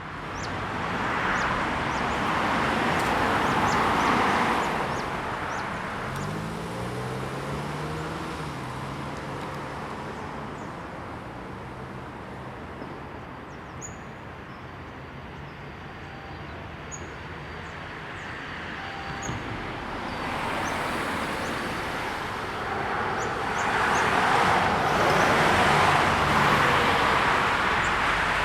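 Traffic on a busy main road: cars passing with tyre noise that swells and fades, and a quieter lull in the middle. Partway through, an engine's note rises as a vehicle pulls away, before more cars pass near the end.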